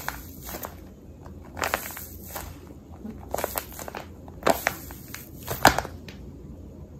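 Paper squishy, a stuffed paper cupcake, being squeezed in the hands and crinkling in a run of short crackly bursts. The crinkling stops about a second before the end.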